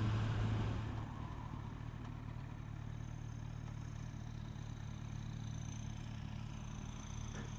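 Motorcycle engine running steadily at low revs with road noise, picked up by the bike's own camera; it quietens about a second in as the bike eases off behind the traffic.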